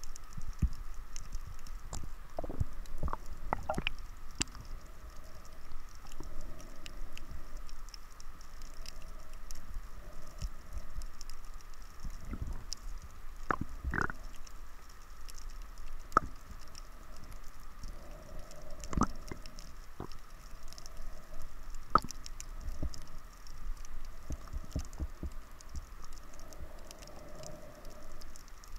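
Muffled underwater sound heard through a camera housing below the surface: a low rumble of moving water with irregular clicks and knocks, over a faint steady tone.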